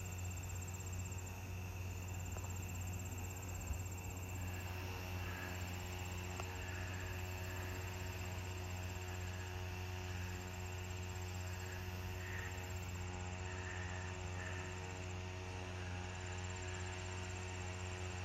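Crickets and other insects trilling steadily, a fast high pulsing trill over a softer chorus, with a few faint chirps. Beneath them, and louder, runs a steady low mechanical hum.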